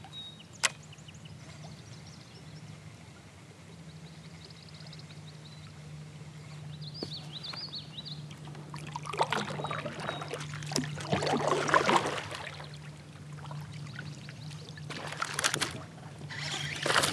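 Water splashing and trickling around a fishing kayak, with a sharp click about a second in and faint chirps of small birds in the first half. Near the end a bass strikes a topwater frog lure with a splash.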